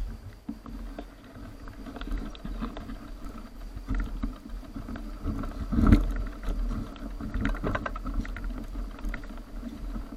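Mountain bike ridden over a rough dirt forest trail: tyre noise on the dirt and the bike rattling and knocking over bumps, with a hard jolt about six seconds in.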